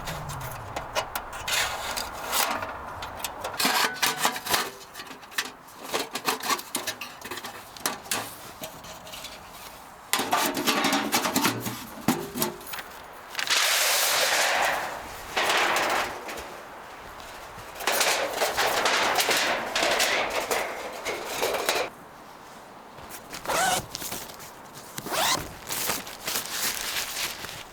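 Camp gear being handled during tent setup: a run of rubbing and scraping noises in bursts of a second or two, with clicks and knocks in between.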